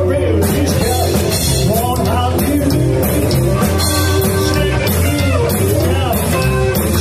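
Live rockabilly trio playing: an electric hollow-body guitar, an upright bass and a small drum kit with snare and cymbals, under a male lead vocal.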